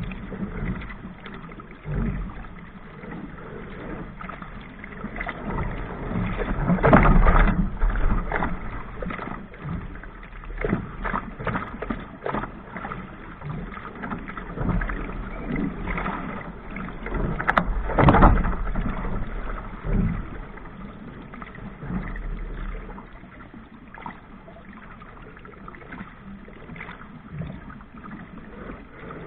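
Waves slapping and splashing against the bow of a small sailing dinghy under way through choppy water, in irregular bursts, loudest about seven and eighteen seconds in.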